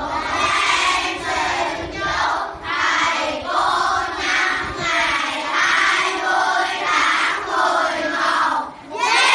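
A class of primary-school children singing a song together in sung phrases. Near the end the singing stops briefly and a loud burst of voices follows.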